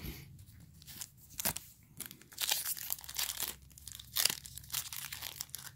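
Foil wrapper of a Topps Chrome trading-card pack crinkling and tearing as it is worked open by hand, in a run of irregular crackles.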